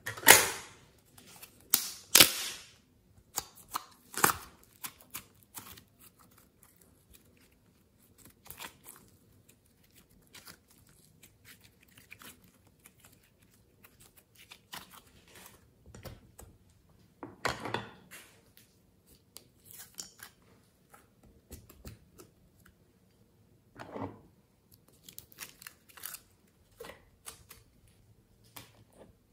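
Close-miked hands handling slime and clay: sticky peeling and crackling as slime is pulled from its container and pieces are laid into a tray. Several louder sharp peels come in the first few seconds and twice later, with quieter crackles in between.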